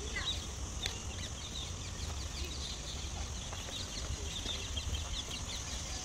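Many birds chirping and chattering at once, a dense run of short calls, over a steady high hiss and a low rumble.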